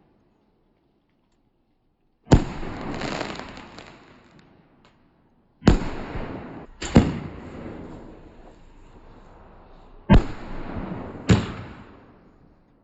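Loud consumer fireworks going off: after a short silence, five sharp bangs, each trailing off over a second or two, the second and third and the last two coming close together.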